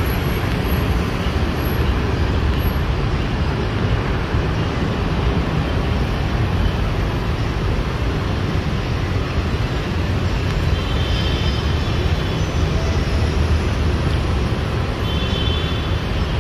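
Steady city street traffic noise, vehicles running past without a break, with a few faint high tones about two-thirds of the way in and near the end.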